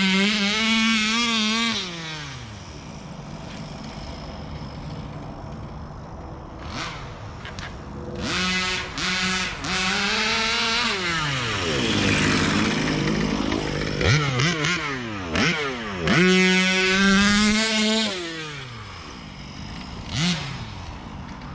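Small two-stroke gas engine of an HPI Baja 5B 1/5-scale RC car revving in repeated bursts as it is driven, the pitch rising and falling with each throttle blip. About halfway through, the pitch sweeps up and then down as the car passes close by.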